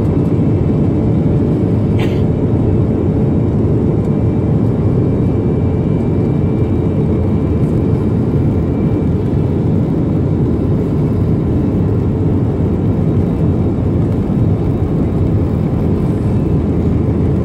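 Airliner cabin noise heard from a window seat over the wing: steady rumble of the jet engines and the plane rolling along the runway.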